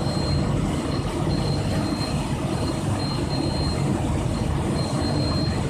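Biomass sawdust/wood-chip burner firing a steam boiler, running with a steady low rumble and roar, and a thin high whine that cuts in and out every second or so.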